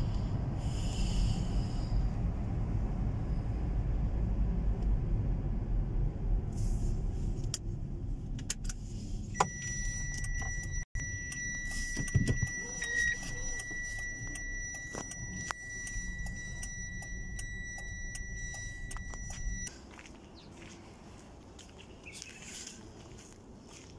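Low, steady vehicle rumble with scattered clicks and knocks. A steady high-pitched electronic tone sounds for about ten seconds in the middle. The rumble cuts off abruptly about twenty seconds in, leaving only faint sound.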